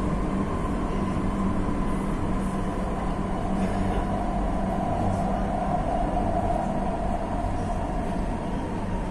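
Metro train running through a tunnel, heard from inside the passenger car: a steady rumble of wheels on rails with a low hum, the mid-pitched running noise swelling a little about halfway through.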